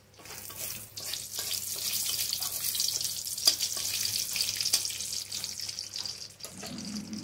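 Dried red chillies, bay leaves and whole garam masala sizzling in hot oil in a kadai, the tempering (phoron) stage of the curry: a steady frying hiss with scattered crackles that swells over the first second.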